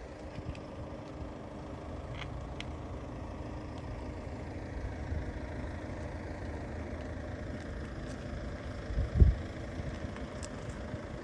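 A car engine running steadily at idle, a low even rumble, with a single low thump about nine seconds in.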